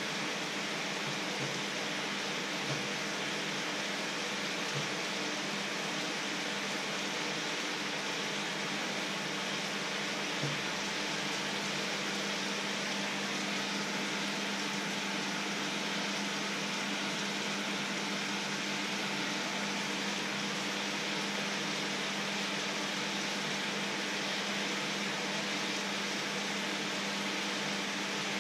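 Water at a rolling boil in a pan on an electric hob: a steady hiss and bubbling over a constant low hum, with a few faint knocks in the first half.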